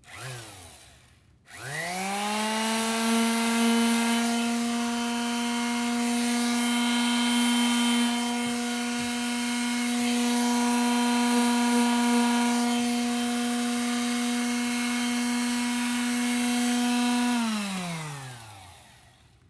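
Electric sander with 220-grit paper sanding car primer. It gives a short blip, then spins up about a second and a half in and runs at a steady pitch with a rubbing hiss over it, then winds down near the end.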